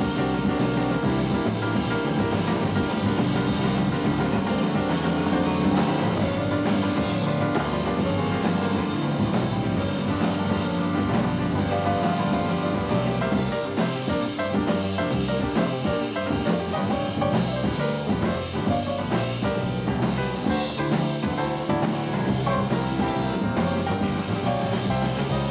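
Live jazz quartet playing: piano with drum kit and bass, the cymbals keeping a steady beat under busy, fast-changing piano lines.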